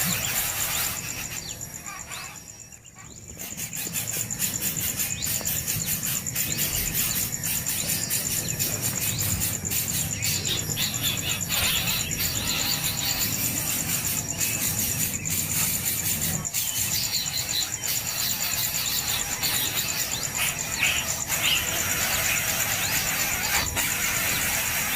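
Nestling birds giving shrill, squealing begging calls for food, over a steady high-pitched hum.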